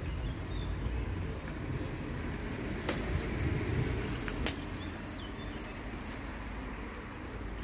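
Outdoor ambience while walking a dirt path: a steady low rumble with a few sharp clicks, two of them about three and four and a half seconds in.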